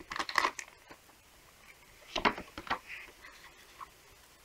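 Pokémon trading cards and their foil booster wrapper being handled: faint rustling with a few light clicks, three of them close together about two seconds in.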